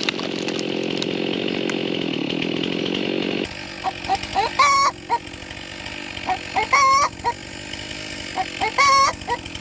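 Stihl chainsaw running at full throttle, cutting into an oak trunk, then cutting off abruptly about a third of the way in. After it, chickens squawk three times, short loud calls about two seconds apart.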